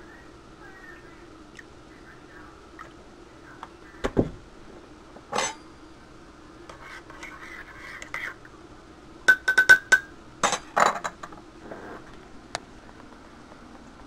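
Metal spoon stirring coffee in a ceramic mug. It knocks against the mug once or twice, then clinks against the sides in a quick run of ringing taps about nine to eleven seconds in, over a faint steady hum.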